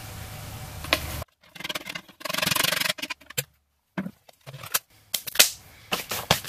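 Dryer lint being pulled out of a plastic vacuum dust cup and handled: a soft rubbing and rustling, then hands brushing off with a series of light taps and knocks near the end. A low background hum stops abruptly a little over a second in.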